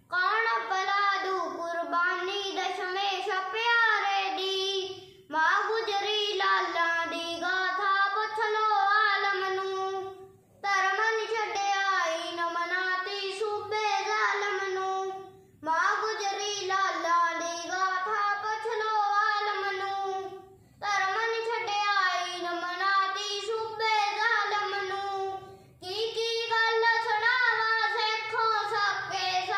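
A young boy singing unaccompanied, in phrases of about five seconds, each followed by a short pause for breath.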